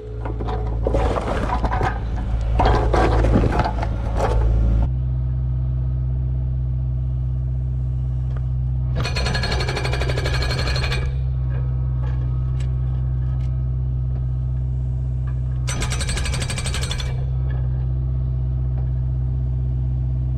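Kubota KX057 compact excavator's diesel engine running steadily, stepping up in pitch about five seconds in, while an Okada hydraulic breaker hammers rapidly on rebar-reinforced concrete in bursts: a long run at the start, then two shorter runs of about two seconds each.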